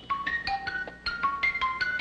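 Bell-like chime tones from a game-show panel's voting buttons. Single clean notes at many different pitches start at irregular moments, several a second, each ringing on briefly, as the buttons are pressed.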